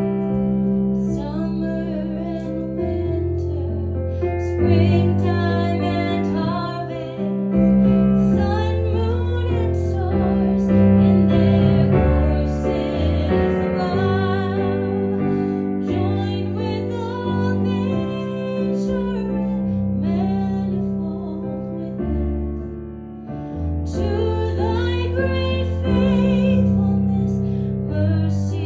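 Slow piano music with a singing voice, a song in the church service.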